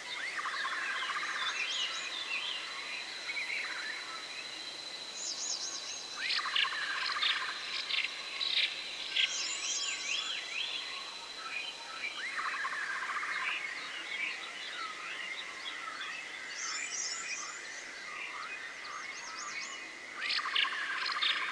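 Forest ambience of birds chirping and warbling over a steady high insect-like trill. A similar cluster of calls comes back about every six to seven seconds, like a looped track.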